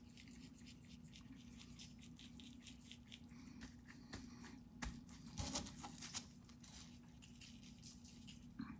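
Seasoning rub shaken from a plastic shaker bottle onto a raw tri-tip and patted into the meat with a gloved hand: faint scattered rattles and soft pats over a steady low hum, with a few louder shakes about five to six seconds in.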